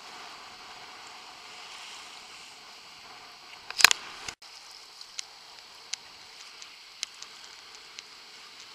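Steady hiss of choppy water and wind around a camera riding low on the sea, with scattered small ticks. A loud splash comes about four seconds in.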